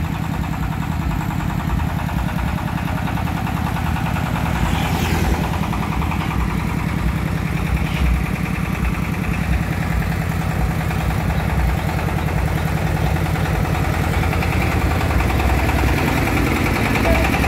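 Engine of a vehicle-mounted mobile bandsaw sawmill running steadily as it drives along the road, getting a little louder near the end as it comes close and passes. A motorbike goes by near the end.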